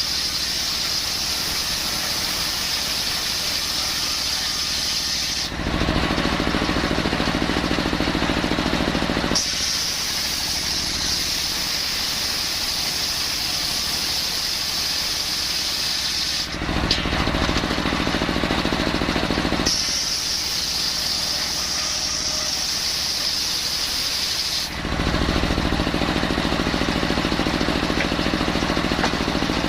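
Circular saw running and sawing coconut wood, its sound switching back and forth every few seconds between a high-pitched whine and a louder, lower, heavier sound.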